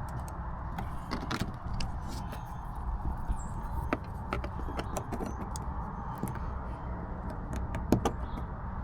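Light, irregular clicks and rattles of plastic interior trim being handled and worked loose, with a sharper click near the end, over a steady low hum.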